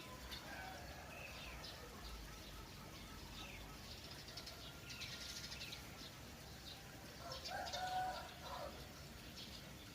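Small birds chirping and twittering throughout, with a chicken calling once, the loudest sound, about seven and a half seconds in.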